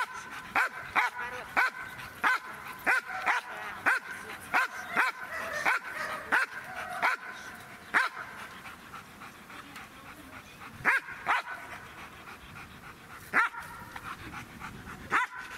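A dog barking in a steady string, about two barks a second for the first eight seconds, then only a few spaced barks.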